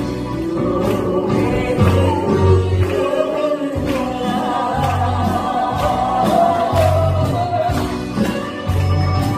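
A solo singer singing a Korean trot song into a microphone over trot accompaniment with a steady, repeating bass line and drum beat. In the second half the voice holds one long note with vibrato.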